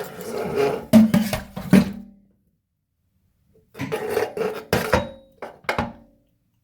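Old kitchen faucet and its supply hoses being worked up and out through the sink deck: rough scraping with sharp knocks and clunks, in two bursts.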